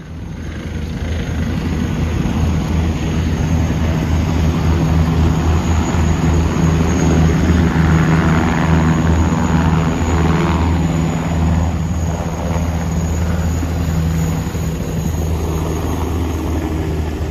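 Several military helicopters flying low past: a fast, pulsing rotor beat over a steady high turbine whine, loudest in the middle as they go by.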